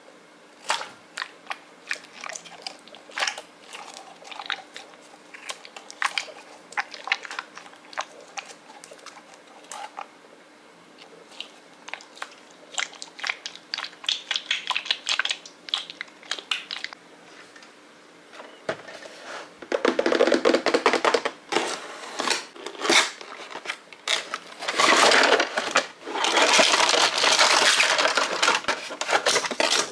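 Hands squeezing and stretching a goo-filled Goo Jit Zu Spider-Man stretch figure, with scattered short handling noises. About twenty seconds in, loud, continuous rustling and scraping starts, with brief gaps, as a cardboard toy box and plastic packaging are opened and plastic track pieces are handled.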